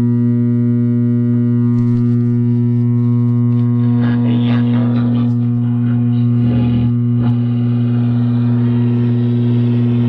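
Vintage Lafayette tube radio switched on, its speaker giving a loud, steady hum with some crackling around the middle. The hum is typical of a radio that needs a new filter capacitor, which is what the owner thinks it needs.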